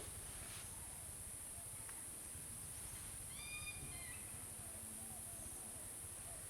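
A bird gives one short, clear call about three seconds in, ending in a slight downward bend. It sits over a steady high-pitched hiss and faint low rumble of outdoor ambience.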